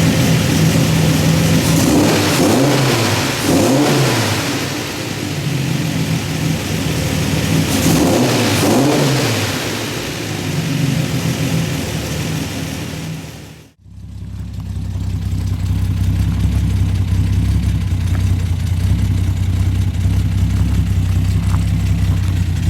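Freshly rebuilt L26 inline-six of a 1974 Datsun 260Z running and being revved twice, the pitch rising and falling each time. About two-thirds of the way through the sound cuts off abruptly and is replaced by a steady, lower engine drone.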